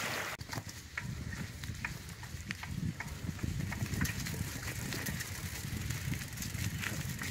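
Schwinn bicycle's tyres rolling along a dirt trail covered in dry fallen leaves and twigs, with scattered crackles over a steady low rumble.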